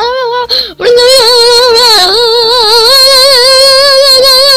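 A high-pitched cartoon character's voice: a few short syllables, then one long, wavering sung note held to the end, with a brief dip in pitch about two seconds in.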